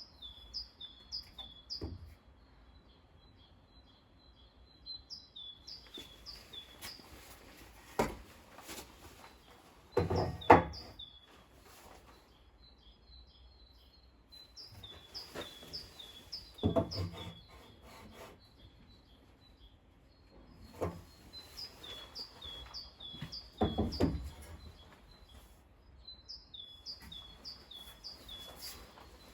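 A songbird singing phrases of short, quickly repeated falling chirps, over a few loud wooden knocks and scraping rubs on the tabletop, the loudest about ten seconds in.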